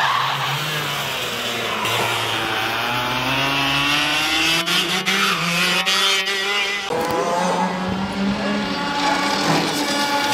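Racing kart engine running hard, its pitch climbing as it accelerates, with two abrupt jumps in pitch partway through.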